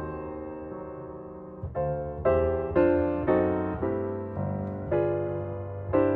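Background piano music: a held chord fading for the first second and a half, then chords struck about twice a second, each dying away.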